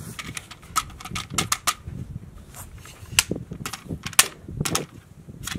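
Irregular sharp metallic clicks and clacks from handling a bolt-action precision rifle, with a detachable magazine being worked in and out of the magazine well. The loudest clacks come about a second in and again around four seconds in.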